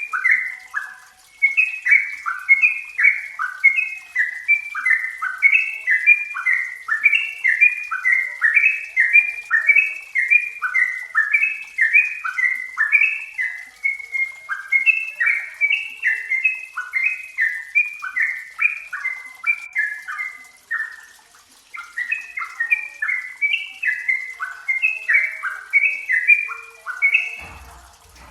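Yellow-vented bulbul singing: rapid, bubbly chattering phrases repeated back to back, with a short break about 21 seconds in. A brief low thump near the end.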